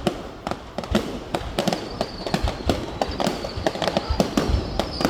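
Fireworks going off in a rapid, irregular run of sharp bangs and cracks, several a second. A faint high whistle runs through the second half.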